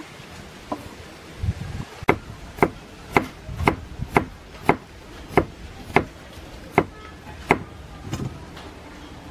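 Cleaver chopping fresh turmeric root on a round wooden chopping block: about ten sharp knocks of the blade on the wood, roughly two a second, starting about two seconds in and stopping near the end.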